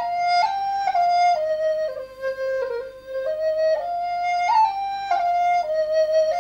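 Background music: a solo flute melody moving from note to note about twice a second.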